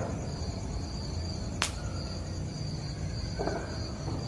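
Crickets chirping steadily in a high, pulsing trill over a low background rumble, with one sharp click about a second and a half in.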